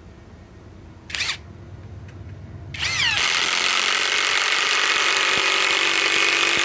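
Cordless impact wrench driving a long structural screw into timber: a short trigger blip about a second in, then from about three seconds in it hammers steadily and loudly.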